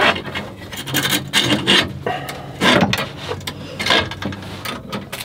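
Wire steering cable scraping and rubbing against the metal steering quadrant as it is handled and threaded by hand, in irregular rasping strokes.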